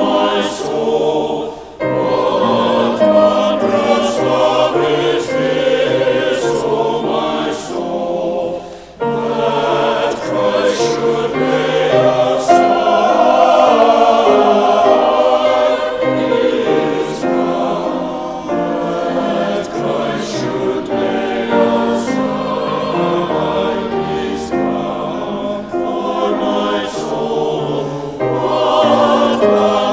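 A choir singing, with short breaks between phrases about two seconds in and again about nine seconds in.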